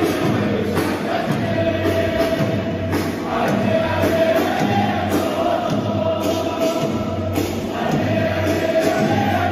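A stadium crowd of football supporters singing a chant together in unison, the massed voices carrying in long phrases.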